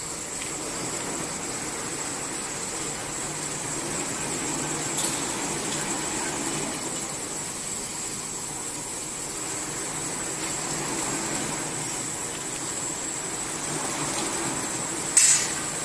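Rows of horizontal wrapping machines running in a factory hall: a steady mechanical whirr with a thin constant high whine over it. A short sharp metallic clink comes near the end.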